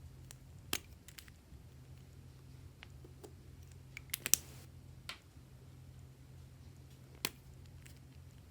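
Butter slime being pressed and worked by hand, giving sparse sharp clicks and small pops, loudest as a quick run of three a little past the middle, over a faint steady low hum.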